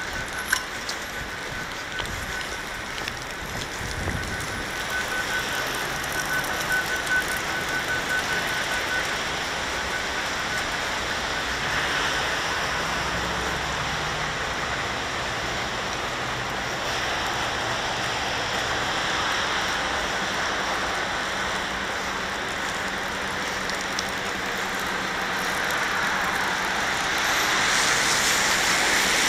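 Traffic on a wet city road: a steady hiss of tyres on wet asphalt that swells as cars pass, loudest near the end.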